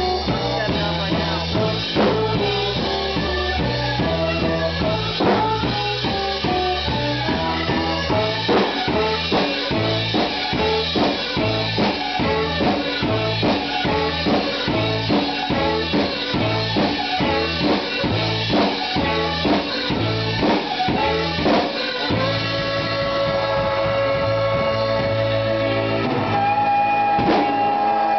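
A band playing live in the room: a Premier drum kit keeps a steady driving beat under a bass guitar line and electric guitar. About twenty-two seconds in, the beat drops out and held organ chords ring over sustained bass notes.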